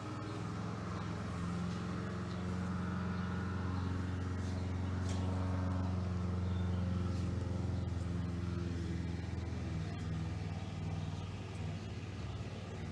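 A steady low engine-like drone with an even hum, growing a little louder through the middle and easing off near the end, with a few faint clicks over it.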